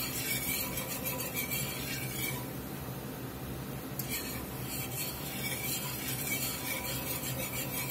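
Wire whisk stirring and scraping against a cast-iron skillet as flour is worked into hot bacon fat to make a roux. The scraping stops for about a second and a half midway, then resumes.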